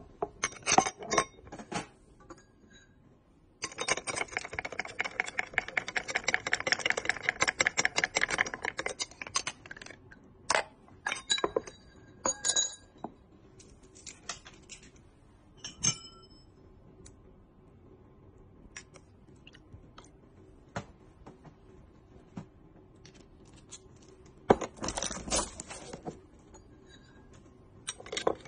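Ice and glassware clinking: scattered sharp clinks and knocks, with a dense run of rapid crunching and crackling of ice from about four seconds in to about nine, and another cluster of clinks near the end.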